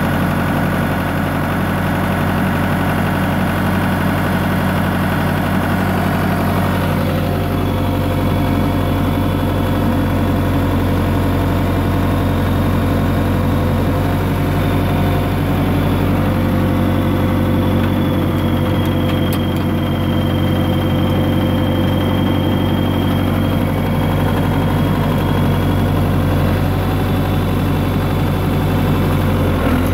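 John Deere 450C crawler's diesel engine idling steadily. About seven seconds in, its note shifts slightly and a thin high whine comes in and stays.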